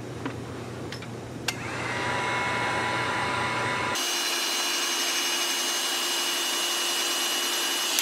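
Heat gun switched on about a second and a half in, after a few light clicks, then running with a steady rush of air and a faint whine from its fan; its tone shifts abruptly halfway through. It is heating the glued front ring of a GoPro camera to soften the adhesive.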